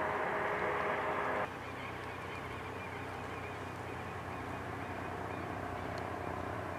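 Helicopter flying overhead, a steady hum with several held tones, cut off abruptly about a second and a half in. After the cut, quieter outdoor ambience with a low steady hum and faint, repeated wavering high calls.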